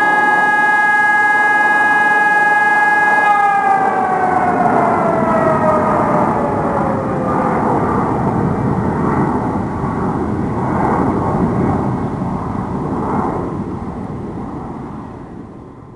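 Fire-alarm test of an ECN 1200 electronic siren with an E57 motor siren: a steady siren tone holds for about three seconds, then winds down, its pitch falling for about four seconds. It gives way to a rushing noise that fades out near the end.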